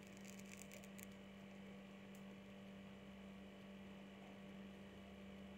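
Near silence: a steady low electrical hum, with a few faint ticks in the first second.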